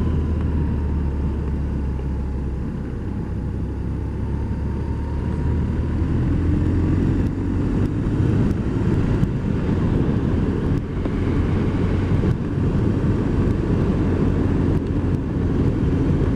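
BMW R1200 R's air/oil-cooled boxer twin running under way, heard from the rider's helmet with wind noise over it. It eases off briefly, then pulls harder with a rising engine note from about six seconds in.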